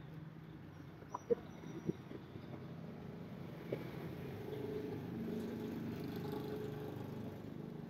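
Faint low engine hum of street traffic that swells for a few seconds in the second half and then eases, with a few light clicks in the first two seconds.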